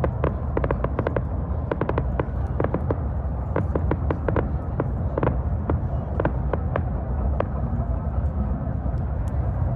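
Crackling fireworks: rapid sharp pops and cracks that thin out about three-quarters of the way through as the display dies away, over a steady low rumble.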